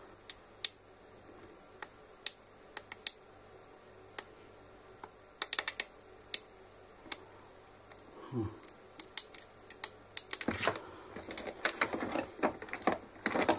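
Small tactile push buttons on a multicooker's control board clicking as they are pressed one after another during a multimeter check, along with handling of the board. There are a few single clicks at first, then quicker runs of clicks in the second half.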